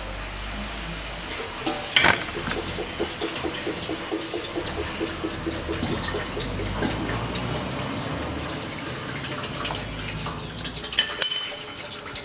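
Automatic transmission fluid draining in a thin stream from the open gearbox drain hole, a steady trickling pour. A sharp knock about two seconds in and metallic clinks near the end.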